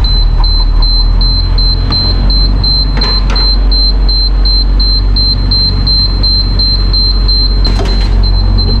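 International 3800 bus's T444E V8 diesel idling, with a high-pitched dash warning beeper pulsing about three times a second over it; the beeping stops near the end. The beeper is the low-air-pressure warning: the air tanks have been drained and the system is not yet building air.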